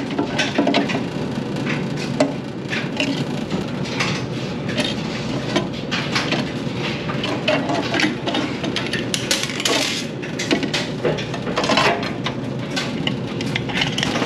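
Scattered clicks, taps and light metallic clatter of screws and hand tools as the control panel of a Speed Queen commercial washer is unscrewed and handled, over a steady low background noise.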